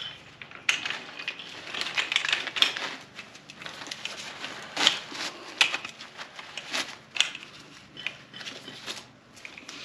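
A Cliq compact camping chair being folded up by hand: its legs clack and knock together irregularly while the fabric seat rustles as it is wrapped around the collapsed frame.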